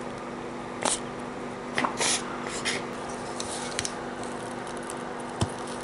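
Bulb-type desoldering iron sucking solder off a circuit board's pins: a few short hissing, squishy puffs from the rubber bulb being released and squeezed, then a sharp click near the end.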